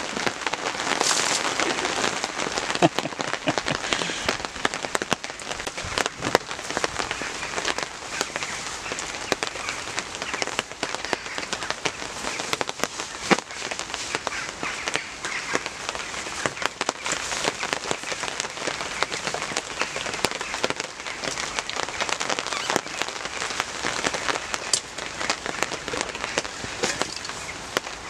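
Steady heavy rain falling on the tarp overhead, with many sharp individual drop hits.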